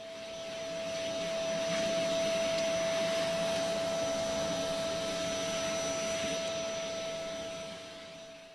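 Vacuum cleaner running steadily with a strong, steady whine over its airflow noise; it tapers off near the end.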